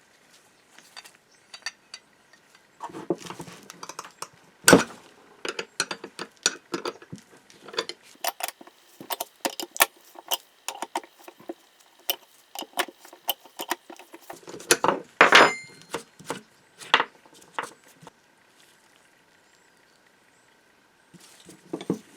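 Small metal parts clinking and knocking as they are handled and set down, in irregular clicks with a few louder knocks, the loudest about five seconds in and another cluster about fifteen seconds in. A quiet pause falls near the end.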